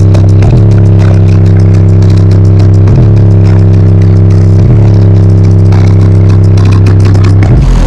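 Single 18-inch Sundown X18 subwoofer playing a sustained deep bass note at very high volume, so loud the recording distorts. The note breaks briefly about half a second, three seconds and nearly five seconds in, and shifts just before the end.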